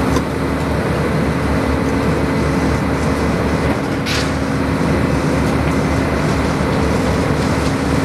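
A heavy engine runs steadily with a constant droning hum. A short hiss cuts in about four seconds in.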